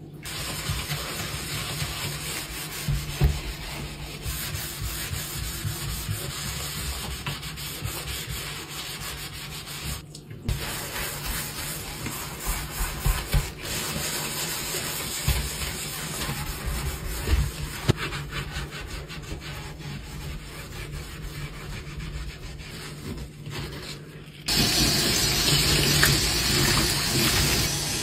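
Sponge scrubbing a stainless steel sink basin smeared with cleaning cream, an uneven rubbing that breaks off briefly about ten seconds in. Near the end a tap is turned on and water runs steadily into the sink.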